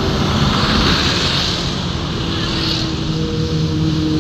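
Road traffic on a wet road: an intercity coach driving past with a steady engine drone, mixed with the hiss of tyres and the engines of passing motorbikes.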